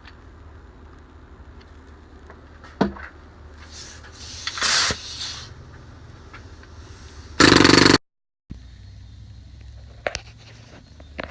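Snap-on PH3050BG pneumatic air hammer fires in one loud burst of about half a second, about seven seconds in, and cuts off suddenly. Before it come a metallic click and a short hiss of air; a couple of sharp clicks follow later.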